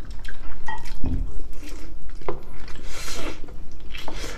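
Close-up wet eating sounds of spicy braised chicken in sauce: chewing, lip smacks and sucking with short clicks, and a longer wet slurp about three seconds in.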